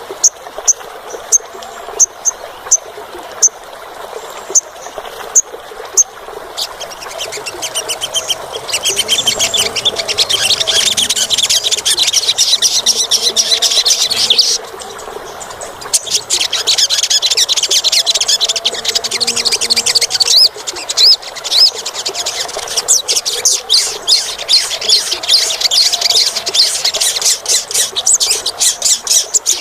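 Olive-backed sunbird calling: a string of sharp high chips about two a second, then long runs of fast, high-pitched twittering song, broken by a short pause about halfway through.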